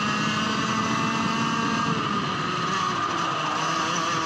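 Rotax Max 125 cc two-stroke kart engine running at speed, picked up by a camera mounted on the kart. Its note holds steady and dips slightly in pitch about halfway through.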